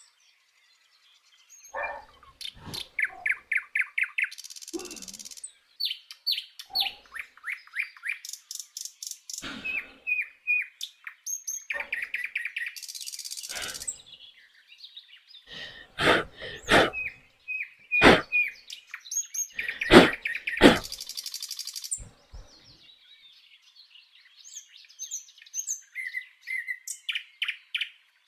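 Birds chirping in quick runs of repeated trilled notes, with stretches of a high steady hiss. Several sharp knocks cut in, loudest in the middle.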